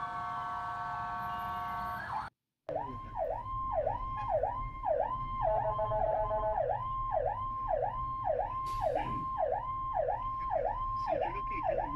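Emergency vehicle sirens. At first a steady, multi-tone siren sound plays; a sudden cut about two seconds in silences it briefly. Then a fast yelp siren sweeps up and down about twice a second, with a short steady lower tone sounding over it near the middle.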